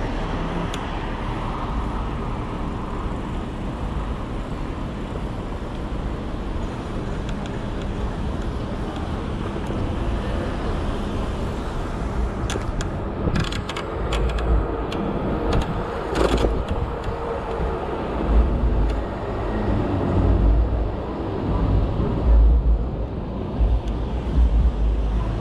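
Riding an e-bike in city traffic: road and traffic noise with wind rumbling on the microphone, the deep gusts coming and going more in the second half. A few sharp clicks or knocks come around the middle.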